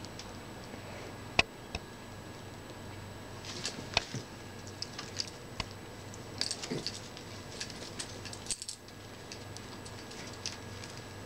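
A small dog moving about, with scattered light clicks and jingles: a single sharp click about a second and a half in, a few more around four seconds, and a busier run of clicks from about six to nine seconds.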